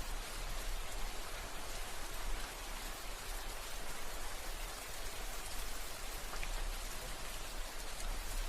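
Steady rain falling, an even hiss of many drops with a few sharper drop ticks, over a steady low rumble.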